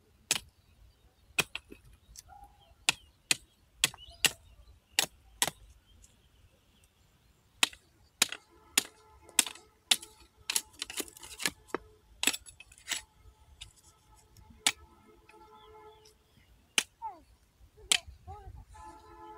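A hand sickle's curved iron blade chopping into hard, dry soil in sharp, irregular strikes, about one a second.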